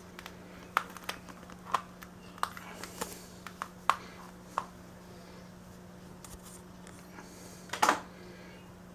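1959 Lasko box fan's motor humming steadily at one pitch, with a scatter of sharp clicks and knocks over the first few seconds and a louder rustling clatter near the end.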